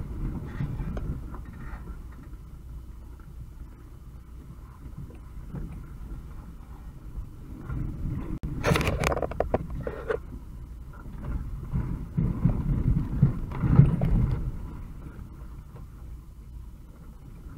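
UAZ 2206 van driving slowly over a rough dirt track, heard from inside the cab: a low engine and drivetrain rumble with irregular knocks and body rattles over the bumps. A loud rattling clatter comes about eight to ten seconds in, and the rumble swells again a few seconds later.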